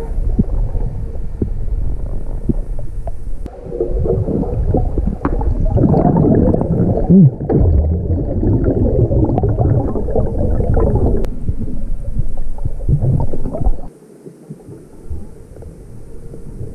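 Muffled underwater rumbling and gurgling of moving water and bubbles, picked up by a camera held under water near a sandy bottom. A busier stretch of crackling and scraping runs through the middle. The sound falls much quieter about fourteen seconds in.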